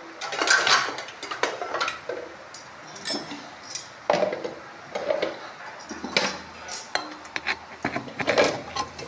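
Stainless steel vessels and mixer-grinder jars clinking and clattering as they are handled and moved: a run of irregular metallic knocks.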